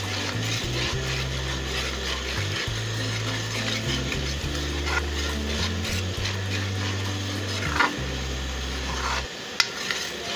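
A metal spoon scrapes and stirs a sizzling masala of onion, tomato and ground spices frying in oil in an aluminium pan: the bhunai stage, before the vegetables go in. A low steady hum runs underneath, and there is one sharp knock near the end.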